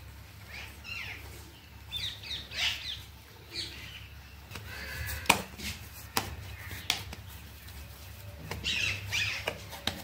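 Birds chirping in several short bursts of quick squeaky calls, with a few sharp taps of hands and dough on a wooden board in the middle and a steady low hum underneath.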